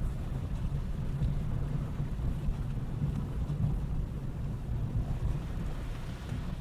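Low, uneven rumble of wind buffeting the microphone, with no clear engine note.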